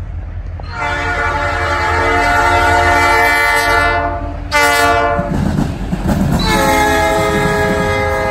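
Diesel locomotive horn blowing a long blast, then a short one about four and a half seconds in, then another long blast from about six and a half seconds. This is the long-long-short-long pattern of a grade-crossing signal. A steady low rumble of the passing train runs underneath.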